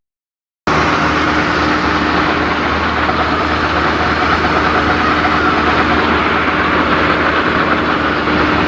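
Yanmar AG600A combine harvester running steadily: a dense, unchanging drone of the diesel engine and machinery with a constant hum. It cuts in abruptly after a short moment of silence at the start.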